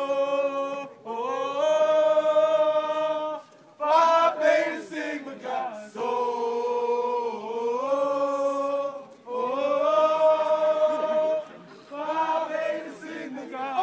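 Men's voices singing a slow fraternity hymn together without instruments, holding long drawn-out notes with short melodic runs between them.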